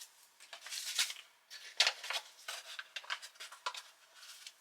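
Foil sachet of orange energy-drink powder being opened and handled: a run of short crinkling and snipping noises, a sharper one about two seconds in.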